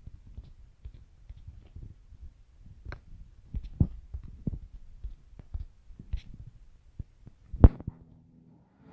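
Irregular soft knocks and taps close to the microphone over a faint low rumble, with one sharper knock near the end.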